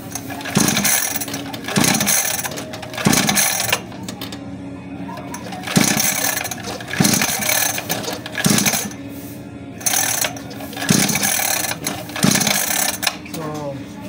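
Recoil pull-start of a 49cc pocket-bike engine yanked about eight times in quick groups of two or three, each pull a short whirring rasp that falls in pitch. The engine cranks but doesn't catch; the fault is traced to the carburetor.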